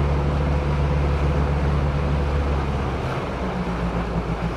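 A boat's motor runs steadily under way, with wind and water noise. About three seconds in, the engine note changes and the sound gets a little quieter.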